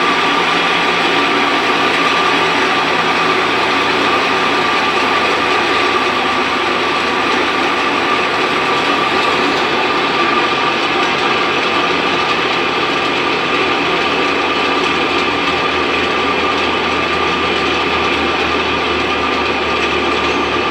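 Faulty washing machine running with a very loud, steady mechanical noise and a constant high whine over it.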